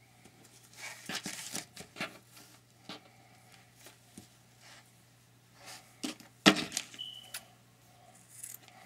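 Hands handling a strip of elastic and a tape measure on a cutting mat: soft rustles and light taps, with a sharp click about six and a half seconds in.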